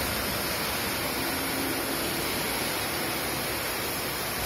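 Steady hiss of two oxy-fuel cutting torches on a CNC gantry beam-cutting machine as they cut through steel beams.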